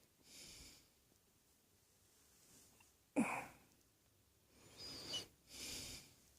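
A person coughing once, sharply, about three seconds in, between soft breaths.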